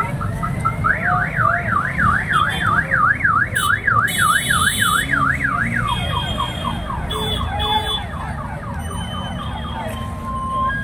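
Vehicle anti-theft alarm cycling through its tones over a low crowd and traffic rumble: quick beeps, then a fast up-and-down warble for about five seconds, then a run of falling whoops that fades out near the end.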